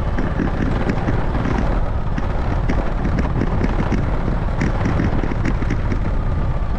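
Small motorbike running steadily while being ridden, with wind buffeting the microphone.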